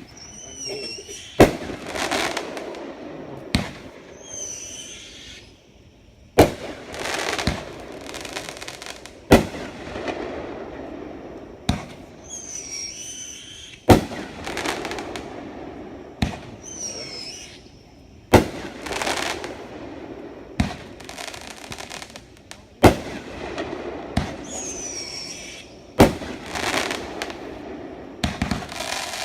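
Dominator 'Patriotic Dominance' 500-gram firework cake firing its shots one after another, about every two to three seconds. Each shot is a sharp bang followed by a second or two of crackling, and high wavering whistles sound with several of the shots.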